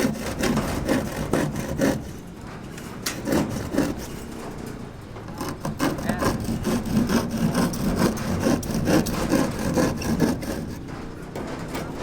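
Hand saw cutting wood with repeated back-and-forth strokes, quieter from about two to six seconds in and then steadier and louder.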